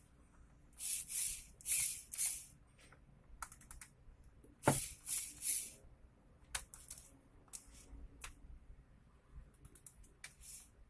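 Hand work on a disassembled cordless drill: short hissing scrapes, mostly in quick runs of three, mixed with sharp clicks of small parts, the loudest click a little before halfway.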